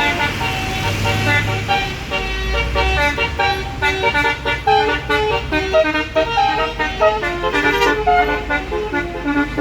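Bus 'basuri' telolet horn playing a quick tune of short tooting notes over the low rumble of the engine.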